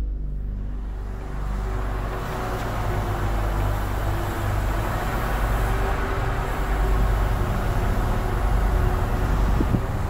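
Steady low outdoor rumble with a hiss above it, slowly getting louder over the seconds.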